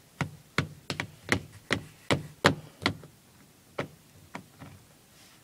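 A dozen or so sharp taps and clicks, two or three a second over the first three seconds, then a few scattered ones.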